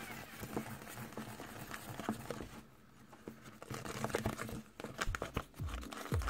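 Wooden stick stirring and folding thick glue slime in a soft plastic cup: a run of small sticky clicks and crackles, with a brief quieter lull midway.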